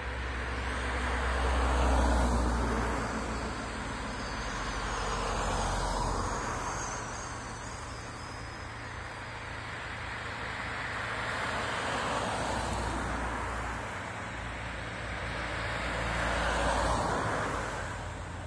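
Cars driving past one after another on an asphalt road, each swelling as it approaches and fading away: about four pass-bys, the loudest about two seconds in and another near the end.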